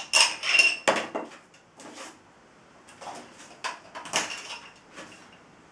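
Hard plastic clicking and clattering of Connect 4 counters against the game's plastic frame as a dog handles them with its mouth: a burst of rattling in the first second, then a few lighter clicks near the end.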